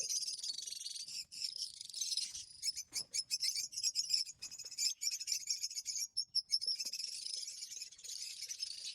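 A bird calling in fast, high-pitched chirping trills, with brief pauses around the middle.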